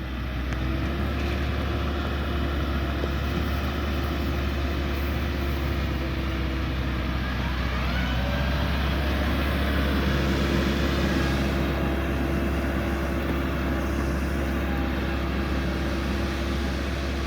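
Vehicle engine running steadily under way, a constant low drone with a faint rising whine about eight seconds in.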